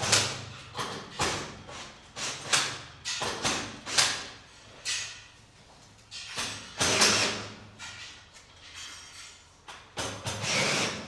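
Irregular knocks, thuds and scraping of garage door panels being handled and unloaded from a vehicle, with a louder clatter about seven seconds in and again near the end, over a low steady hum.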